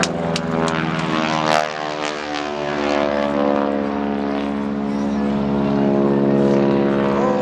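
Aerobatic biplane's piston engine and propeller running hard in a vertical climb: a steady buzzing drone whose pitch shifts over the first two seconds, then holds.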